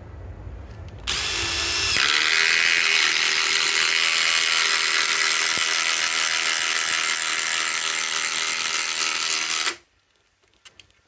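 DeWalt DCF845 XR impact driver driving a 5-inch LedgerLOK structural screw into wood. The motor whines up for about a second, then the impact mechanism hammers steadily for about seven and a half seconds as the long screw goes in under load, and it stops suddenly when the trigger is released.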